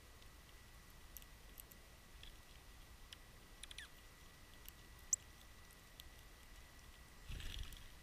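Near-quiet ambience with a faint steady high whine, scattered small ticks, one sharp click about five seconds in, and a short rustle near the end.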